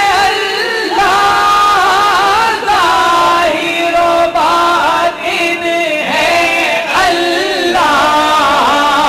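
Devotional singing of a naat: a voice carrying long, wavering melodic lines that bend and hold, with no drums.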